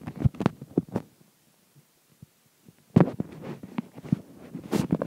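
Handling noise from a handheld camera being moved about: soft thumps and rubbing knocks with a few sharper clicks. They come in two flurries, one at the start and a longer one from about three seconds in.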